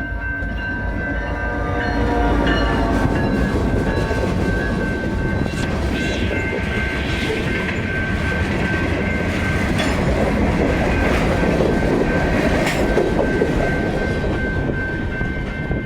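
A train passing close by: its horn sounds for about the first two seconds, then the rumble and clickety-clack of the cars rolling past, with a steady high whine throughout.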